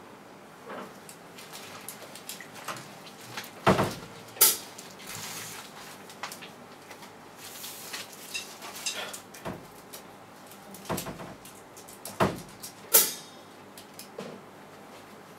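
Scattered single hits on a drum kit with gaps between them and no steady beat. The loudest come in pairs, about four seconds in and again later on.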